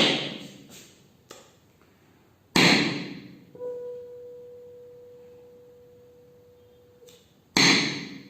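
A tuning fork struck sharply against a hard surface three times; after the second strike it rings a steady pure note for about three and a half seconds, carried through a solid it is pressed on, and the note stops abruptly just before the third strike.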